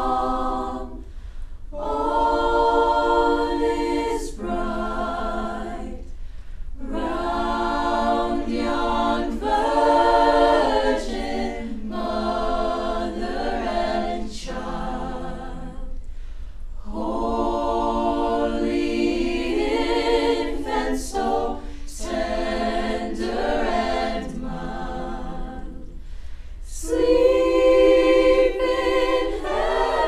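Mixed-voice student choir singing a cappella, in long sustained phrases with brief pauses between them.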